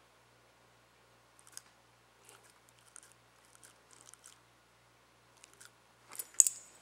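Small dog chewing and nibbling with its mouth: scattered small clicks of its teeth and jaw, the loudest cluster near the end.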